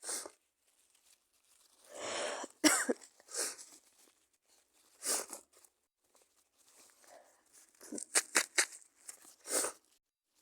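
A sick woman stifling sneezes and coughing: a series of short, sharp bursts held back through a closed mouth and nose, with a quick cluster of several about eight seconds in.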